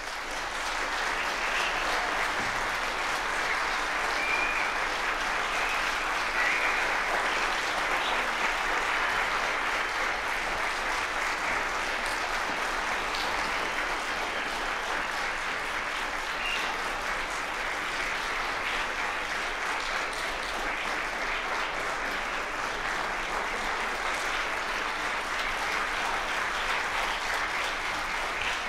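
Audience applauding, starting suddenly as the song ends and holding steady throughout.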